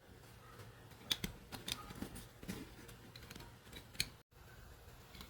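Scattered light clicks and knocks from a backpack and the packed items in it being handled.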